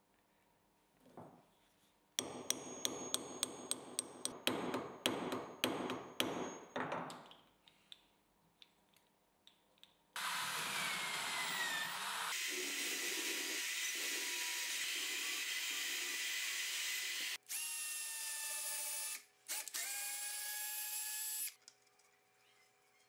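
A benchtop drill press with a hole saw cutting into a plywood block: loud, steady cutting noise starting about ten seconds in and stopping briefly twice before it ends near the close. Before it, a few seconds of rapid scraping and clicking strokes from hand work on a small metal part.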